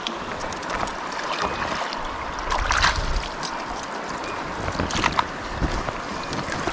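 Water running and splashing, with scattered small clicks and knocks, the loudest about three seconds in and about five seconds in.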